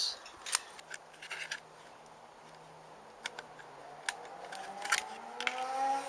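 Sharp clicks and knocks of plastic dishwasher parts and a screwdriver being handled and unclipped, a few scattered strikes. A faint hum rises in pitch through the second half.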